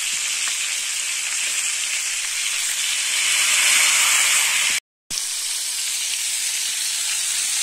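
Floured roach sizzling steadily as they fry in hot oil in a frying pan, being turned over with a fork. The sound cuts out for a moment about five seconds in.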